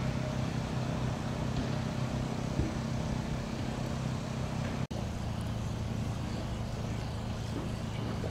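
An engine running steadily at a low, even hum, which drops out for an instant about five seconds in and then continues unchanged.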